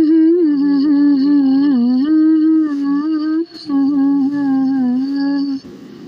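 A woman humming a slow melody without words, in two phrases with a short break about three and a half seconds in; the humming stops shortly before the end.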